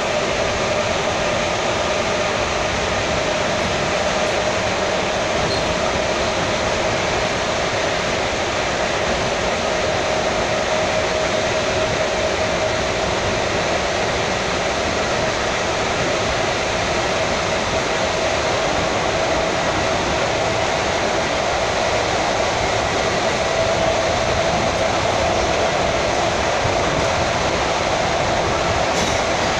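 Electric commuter train (elektrichka) running at speed, heard from inside the carriage: a steady rush and rumble of wheels on rail, with a steady whine running through it that grows a little stronger in the second half.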